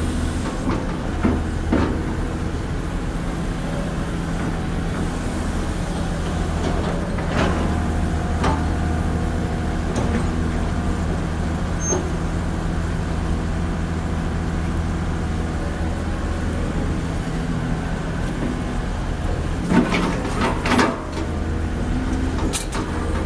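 Excavator's diesel engine running steadily with a low hum, with a few sharp knocks scattered through and a cluster of them near the end.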